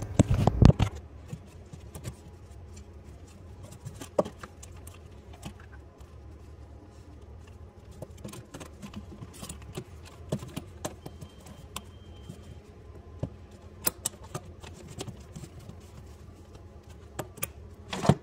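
Scattered clicks and knocks of a garbage disposal and its metal mounting collar being handled and fitted under a sink, with a louder clatter in the first second. A low steady hum sits underneath.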